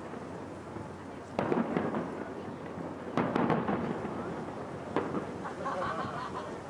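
Aerial fireworks shells bursting: three booms about two seconds apart, each trailing off in a rolling echo.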